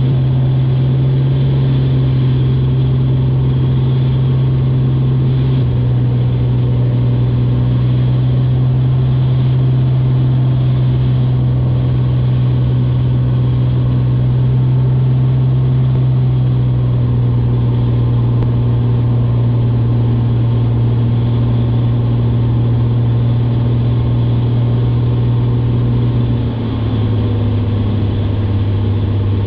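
Single-engine light airplane's piston engine and propeller droning steadily, heard inside the cockpit. About 27 seconds in the drone drops to a lower pitch.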